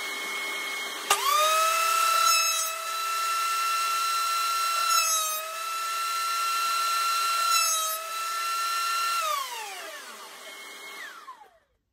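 Benchtop thickness planer switched on with a click about a second in. Its motor whines up to speed almost at once and runs with a steady high whine, broken by three brief rougher bursts at roughly even spacing. Near the end it is switched off and winds down, its whine falling in pitch. A steadier hum from another machine runs underneath before and after the planer and cuts off just before the end.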